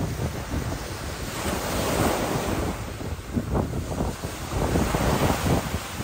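Small ocean waves breaking and washing onto a beach, one wash swelling about two seconds in, with wind buffeting the microphone.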